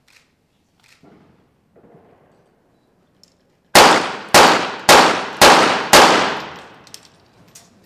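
A five-shot rapid-fire series from a .22 Short rapid-fire pistol, the shots about half a second apart, each followed by a ringing echo in the indoor range.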